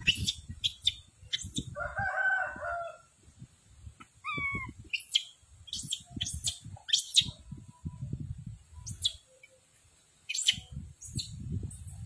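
Outdoor ambience in which a rooster crows once, about two seconds in, and a shorter call falls in pitch near four seconds. Short, sharp high chirps repeat throughout over bursts of low rumble.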